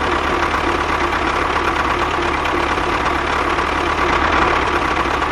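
Small DC motor of a homemade mini machine running steadily with a fast, even buzz.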